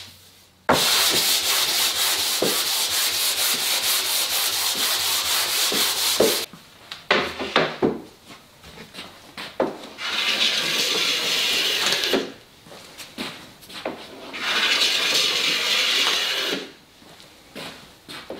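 Hand sanding of wooden drawer parts with a sheet of sandpaper: a long run of rapid back-and-forth strokes, then knocks of boards being moved on the bench, then two shorter runs of rubbing strokes along the wood.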